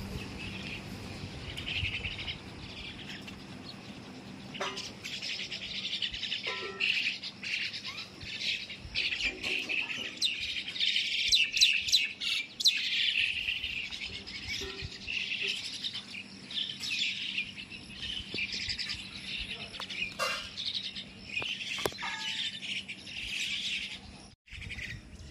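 A flock of small birds chirping and chattering, many calls overlapping, growing denser a few seconds in.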